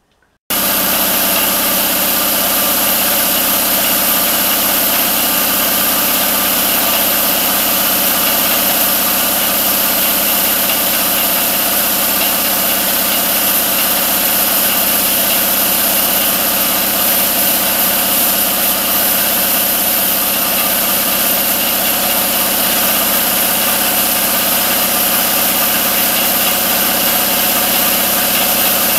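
1993 Craftsman 30-gallon, 5 HP, 240 V air compressor running steadily, its electric motor and pump filling the tank. It starts abruptly about half a second in.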